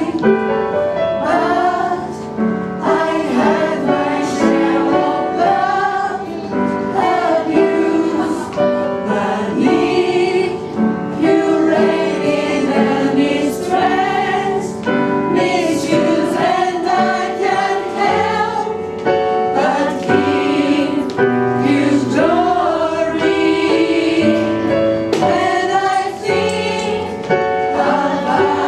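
Gospel music performed live: a choir singing over instrumental accompaniment with a steady beat.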